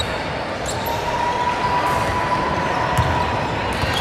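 Basketball bouncing on a gym floor amid the noise of a crowd in an echoing hall, with a sharp knock about three seconds in and a faint steady tone from about a second in.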